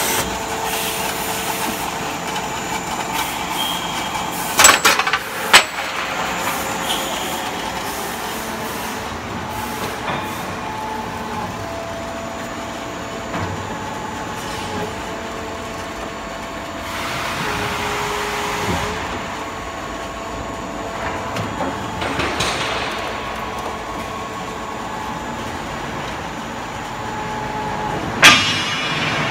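KEENSAW KCS-100A automatic circular metal-cutting saw running through its cycle: a steady machine hum whose tones step up and down. There are sharp metal clanks twice about five seconds in and once near the end, and two stretches of hissing noise midway.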